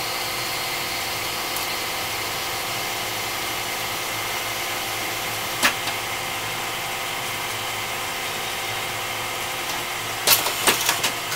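Hardinge automatic turret lathe running steadily as it turns hex bar stock: a constant machine hum with many steady tones. A single sharp click comes about halfway through, then a quick run of clunks and clicks near the end as the turret indexes to the next drill.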